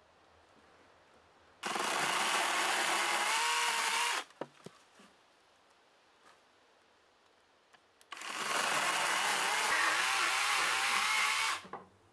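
Hyundai 10-inch cordless electric chainsaw running as it cuts wood, in two bursts of about two and a half and three and a half seconds, its pitch wavering, with a few small knocks in the quiet gap between.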